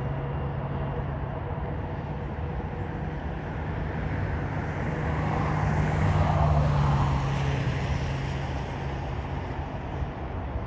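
Airport and traffic background noise with a steady low hum. A rushing noise swells to a peak about six seconds in, then fades as something passes.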